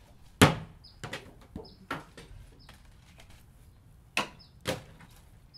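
Vinyl records thrown at a man and smashing: a series of sharp cracks, the loudest about half a second in, three more over the next second and a half, and two more near the end.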